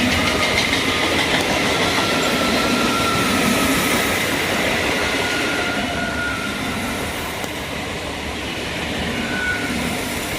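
Indian Railways train running past on the rails: a steady heavy rumble of wheels on track with a faint high squeal of wheels running over it. The sound eases off gradually toward the end.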